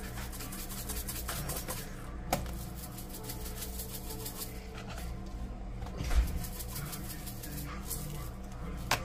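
Seasoning shaken from plastic spice shakers onto raw fish fillets in a bowl: spells of quick shakes in the first two seconds and again around five seconds in, with a couple of sharp knocks as a jar is handled or set down.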